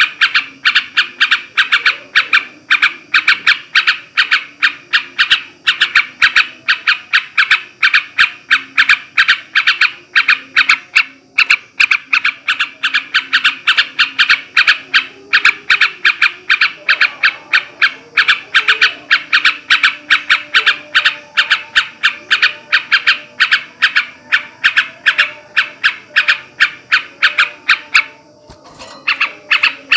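Male yellow-vented bulbul chattering: loud, short calls repeated a few times a second in a fast unbroken run, with a brief pause near the end.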